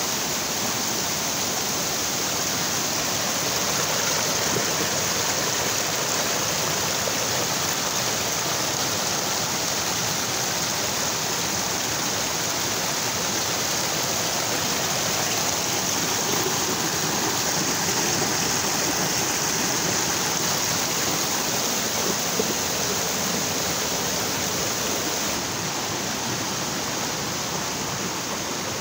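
Spring-fed mountain stream rushing and splashing steadily down over rocks. The flow is swollen and strong from monsoon rain.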